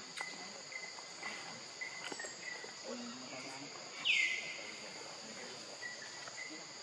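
Steady high insect drone, like crickets or cicadas, with short high calls that sweep down in pitch and level off, one much louder about four seconds in, and a few faint clicks.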